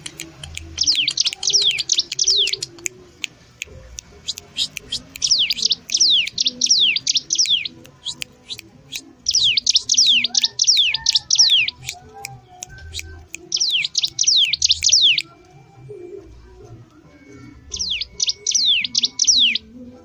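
A caged cigun songbird singing gacor: five loud bursts of rapid, sharply falling whistled notes, each burst one to three seconds long with short pauses between.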